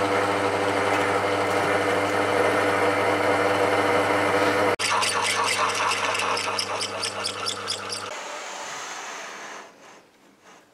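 Woodworking lathe's electric motor running with a steady hum while a tailstock cutting tool bores into a spinning cast iron workpiece. About halfway through the sound cuts to a similar hum with a rapid rhythmic pulsing about five times a second. The sound then thins and falls almost quiet near the end.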